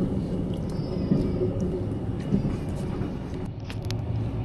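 Steady low rumble of a moving sleeper train, heard from inside the compartment, with a few faint clicks and taps, a small cluster of them near the end.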